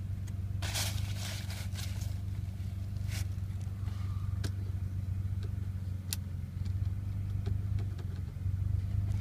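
2007 Ford Fusion's 3.0-litre V6 idling steadily at about 1,000 rpm, an even low hum. A brief rustle and a few faint clicks come in the first couple of seconds.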